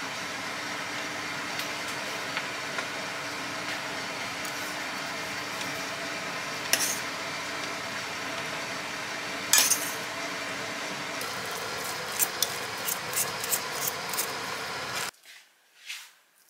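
Fork mashing boiled potatoes in a stainless steel pot, clinking sharply against the metal now and then, with a quick run of clinks near the end, over steady kitchen background noise that cuts off abruptly about a second before the end.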